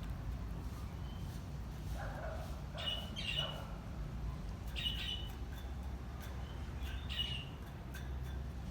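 Chukar partridge calling in short, sharp notes: a cluster of calls about two to three and a half seconds in, then single calls around five and seven seconds, over a steady low hum.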